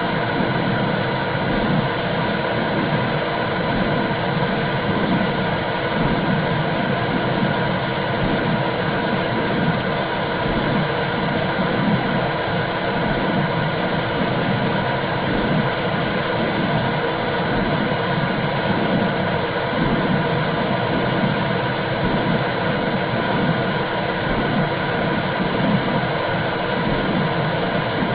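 Womb sound for soothing a baby: a steady whooshing noise with a regular low pulsing under it.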